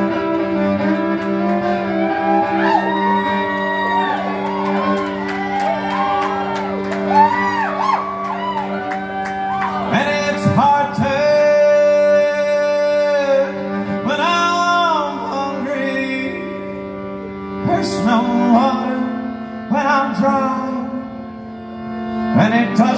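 Solo fiddle playing an instrumental break: a melody with slides and ornaments over a steady low drone of held notes, echoing in a large hall.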